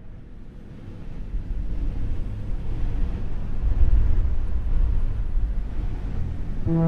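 A low rumbling noise that swells steadily louder; just at the end a deep held musical tone sets in.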